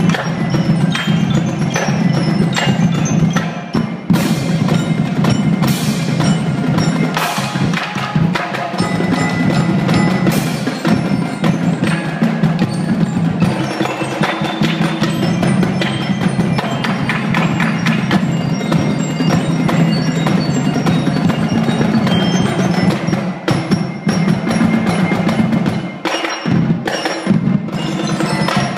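Drumline playing at full volume: marching snare drums, tenor drums, bass drums and hand cymbals struck in a fast, dense, continuous rhythm, briefly dropping out a couple of seconds before the end.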